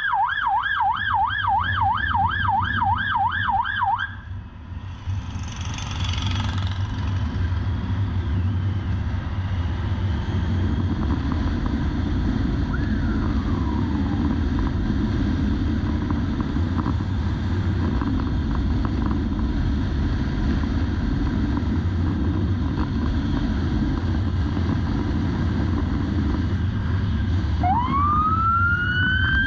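Police motorcycle siren sounding a fast yelp, about three warbles a second, which cuts off about four seconds in. After that the motorcycle's engine and wind noise run steadily at speed. Near the end the siren starts again as a slow wail, rising in pitch.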